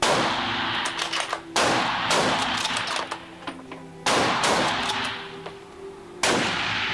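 Four rifle shots about two seconds apart, each followed by a long echoing tail, with a few light clicks between the shots. Soft background music runs underneath.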